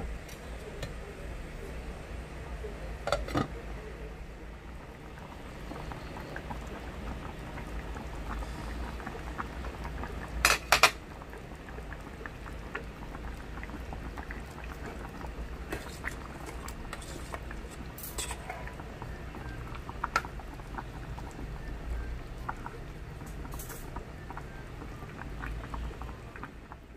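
Chicken and potato stew simmering in an electric cooking pot over a steady low hum, with scattered sharp clinks of a utensil on the dishes; the loudest is a quick cluster of clinks about ten seconds in.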